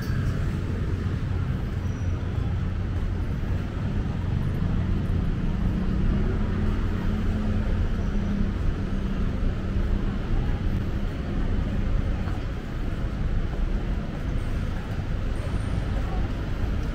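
Street traffic: a steady low hum of passing and idling vehicle engines, with faint voices mixed in.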